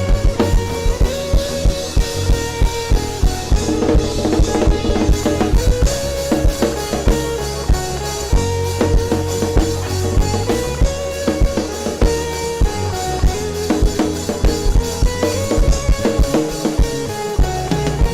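Instrumental worship music with a full drum kit keeping a steady beat, bass drum and snare, over held keyboard or guitar chords.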